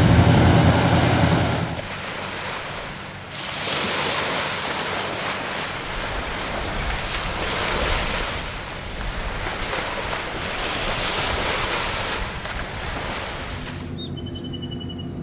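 Wind gusting on the microphone over choppy harbour water. It opens with the low steady rumble of a ferry's engines, which cuts off about two seconds in, and near the end there are a few high chirps over a low hum.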